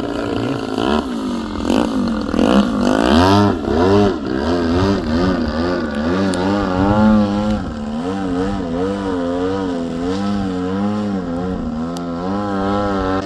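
EPHIL 76cc twin-cylinder model aircraft engine running in flight, its pitch rising and falling over and over as the plane manoeuvres and passes, loudest in the first few seconds.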